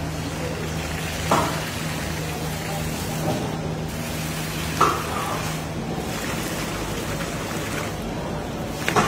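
Sugar syrup streaming from a steel pipe through a hand-held strainer onto a large vat of boondi, a steady splashing hiss. A low machine hum runs beneath it and fades out about two-thirds of the way through, and three short sharp knocks come about a second in, near the middle and at the very end.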